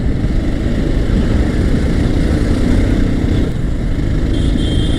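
Bajaj Pulsar 220F single-cylinder engine running at steady speed while riding, mixed with dense road and wind noise on the phone microphone.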